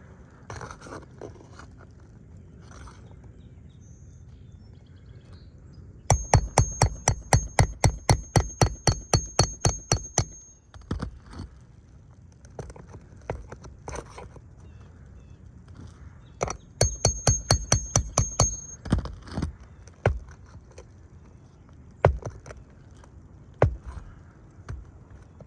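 Two runs of rapid, evenly spaced sharp knocks, about six a second with a thin high ring over them. The first starts about six seconds in and lasts some four seconds, and the second comes near the middle and lasts about two seconds. Scattered single knocks fall between and after them.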